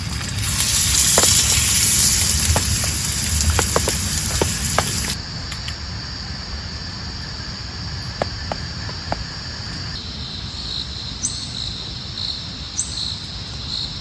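Steady heavy rain with scattered louder drips. About five seconds in it cuts abruptly to a quieter, softer background. From about ten seconds in, insects chirp in a regular high pulse over it.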